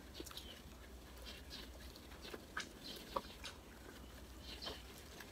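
Faint eating sounds: scattered soft clicks and smacks of chewing and picking at grilled fish and rice by hand.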